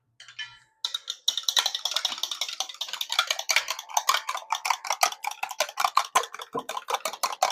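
Eggs being beaten in a bowl: a utensil clicks rapidly and steadily against the bowl's sides, starting about a second in.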